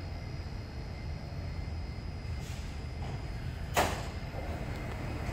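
Steady low rumble and hum of an SMRT CT251 metro train, with one sharp clack nearly four seconds in.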